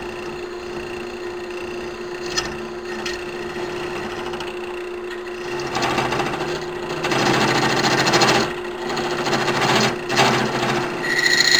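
Central Machinery lathe motor running steadily while a hand-held cutter clamped in vise grips turns down a spinning brass tube. The scraping of the cut grows louder about halfway through and comes in several surges, with a high-pitched squeal near the end.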